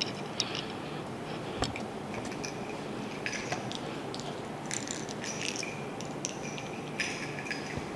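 Cloth rustling as pieces of fabric are shaken out, lifted and tied over the eyes, in short irregular spells of crinkly rustle with a few light clicks.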